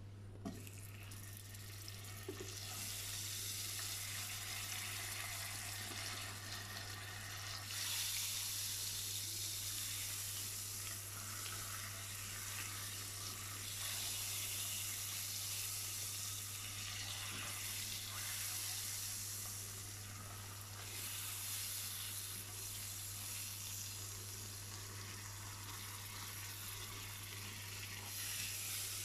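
Butter sizzling and foaming as it melts into hot caramelised sugar in a nonstick pan, stirred with a silicone spatula. A small tap comes as the butter goes in, then the sizzle builds over the first few seconds and grows louder about eight seconds in.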